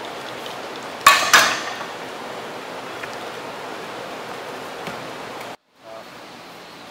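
Loaded barbell racked into the metal uprights of a bench press: two quick metal clanks a quarter-second apart, with a short ringing, over a steady hiss of room noise.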